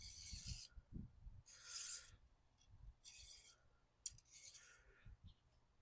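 Sections of an Ozark Trail telescoping travel fishing rod being pulled out one at a time: four short, faint sliding rasps about a second apart, with a sharp click just before the last.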